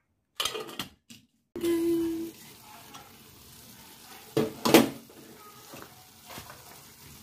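Wooden spatula stirring thick palm oil jollof rice in a metal pot, knocking and scraping against the pot over a steady sizzle of the rice cooking. A few clattering knocks come in the first second or so, and the loudest knock comes about halfway through.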